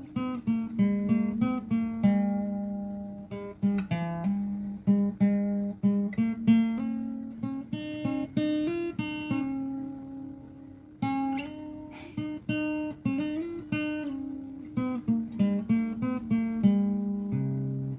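Background music: an acoustic guitar plucking a melody, several notes a second, each ringing and fading.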